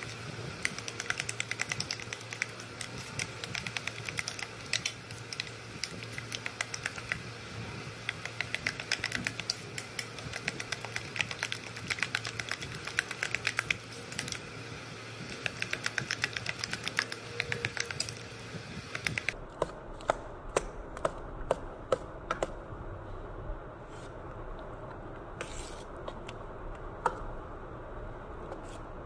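Metal spoon beating raw eggs in a steel bowl: rapid, continuous clicking of the spoon against the steel. The clicks thin out to a sparser patter about two-thirds through.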